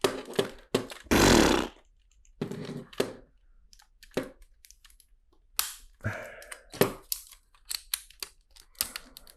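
Plastic LEGO monorail track pieces and bricks being handled and pressed together: a series of sharp clicks and knocks, with a louder rustling scrape about a second in.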